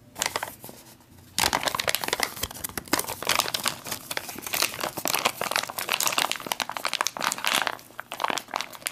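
Crinkling of the laminated foil entrée pouch of an LRP ration, filled with hot water and freeze-dried spaghetti, as hands squeeze and crumple its top. A few faint clicks first, then steady irregular crinkling from about a second and a half in.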